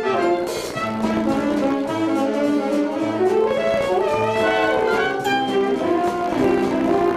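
Orchestra playing show music with the brass to the fore, trumpets and trombones carrying sustained melodic lines.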